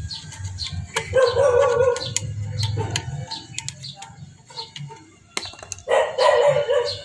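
Two drawn-out animal calls with a wavering pitch, each about a second long, one about a second in and one near the end, with small birds chirping between them.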